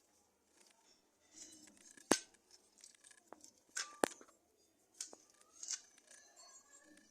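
Metal parts of an Electrolux washing machine motor clicking and scraping as they are fitted together by hand during reassembly, with a few sharp clicks, the loudest about two seconds in and another about four seconds in.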